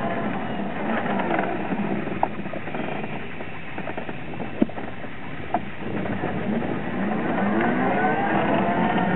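An engine drones throughout, its pitch slowly sinking and rising again. A few sharp clicks cut in, about a quarter, half and two thirds of the way through.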